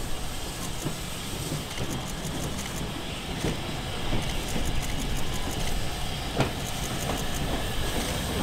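LMS Stanier 8F 2-8-0 steam locomotive No. 48305 hauling a freight train of tank wagons past: a steady rumble of wheels on rails that grows louder as it approaches, with sharp clicks of wheels over the rail joints coming more often in the second half.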